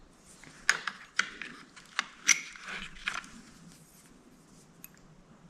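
Twist drill bits being swapped while a drill size is chosen: a handful of sharp metallic clicks and rattles in the first three seconds or so, then quiet.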